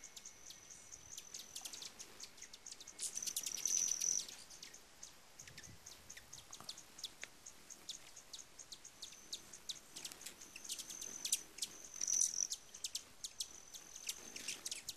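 Hummingbirds at a feeder: quick, high-pitched chip calls and ticks over a thin, high buzzing from their wings, which swells louder about three seconds in and again near the end.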